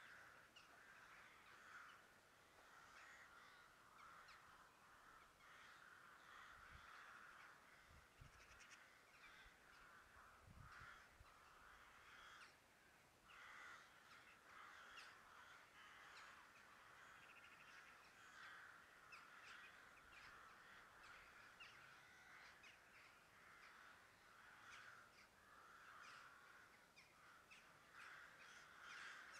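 Faint, continuous chatter of many bird calls in the background.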